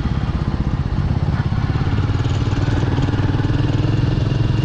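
Motorcycle engine running steadily, with an even, fast firing pulse.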